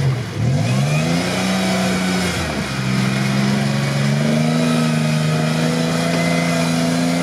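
Engine of a lifted 4x4 on mud tyres revving under load as it climbs through broken shore ice. The revs drop and climb back twice in the first three seconds, then hold a steady, higher note.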